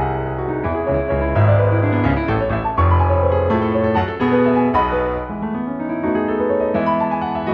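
Piano music played over the footage, with a rising run of notes in its last couple of seconds.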